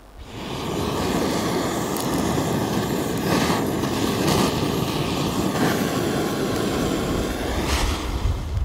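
Handheld gas torch burning with a loud, steady rushing noise as its flame lights charcoal and kindling in a fire bowl.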